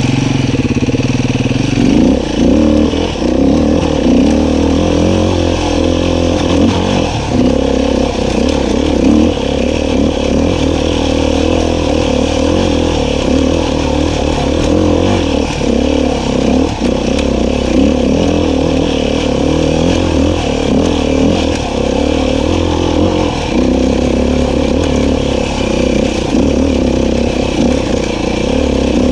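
Beta 500 RR-S four-stroke single-cylinder dirt bike engine running, its pitch wavering up and down continuously as the throttle and load change.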